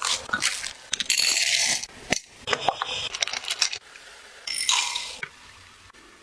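Baking sounds of kitchen utensils: a run of small clicks and clinks, with two short hissing rushes, one about a second in and one past the middle.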